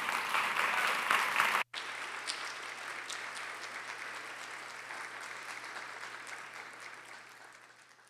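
Audience applauding, a dense patter of clapping. It drops out for an instant about two seconds in, then goes on quieter and fades out near the end.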